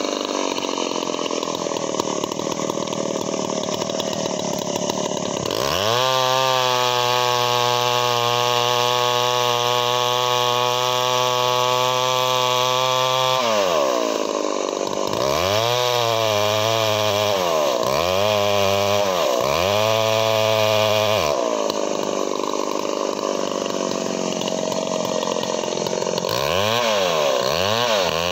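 Two-stroke chainsaw cutting through a felled log. It runs low for the first few seconds, then holds at full throttle for about eight seconds, drops, is revved up and down three times, and comes back to full throttle near the end.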